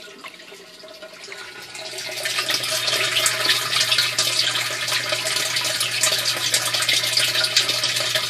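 A stream of water pouring from a pipe into an aquaponics fish-tank barrel, splashing steadily into the water. It starts about a second and a half in, after a quieter stretch.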